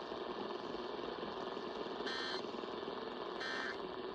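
Two short Emergency Alert System end-of-message data bursts, brief two-tone digital chirps, about two seconds in and again about a second and a half later. They play over steady AM radio hiss and hum, and they signal the close of the alert message.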